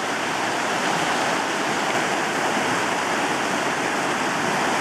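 Steady rush of a fast river.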